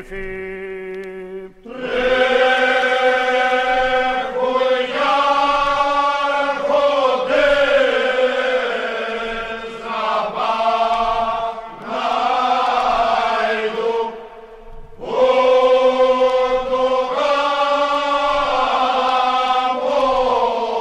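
Cretan rizitiko song sung by unaccompanied voices, in long drawn-out phrases with brief breaks between lines.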